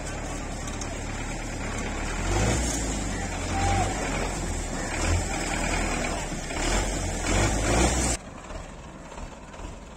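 Farm tractor's diesel engine running under load as it moves a trailer heaped with soil. It grows louder about two seconds in and rises in repeated surges, then drops off abruptly near the end.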